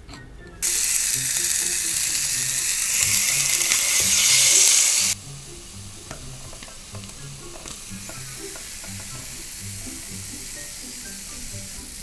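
Mackerel sizzling on the hot plates of an electric waffle maker. A loud sizzle starts suddenly about half a second in, then drops abruptly about five seconds in to a quieter steady sizzle with small pops.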